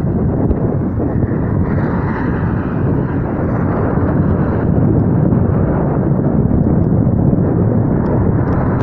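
Wind buffeting the microphone of a camera carried on a moving bicycle, making a loud, steady, low rumble.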